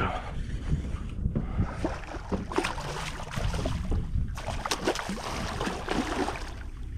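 A hooked redfish thrashing and splashing at the water's surface in several short spurts, over a steady rumble of wind on the microphone.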